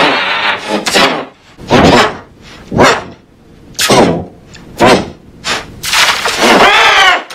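A man's screams and shouts, heavily distorted by the 'G-Major' meme pitch-shift effect: loud bursts about once a second, ending in a longer wavering scream that cuts off suddenly.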